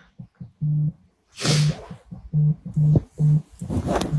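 A mobile phone vibrating with an incoming call, a series of short low buzzes at uneven spacing. Two bursts of rustling come from handling near the phone, about a second and a half in and again near the end.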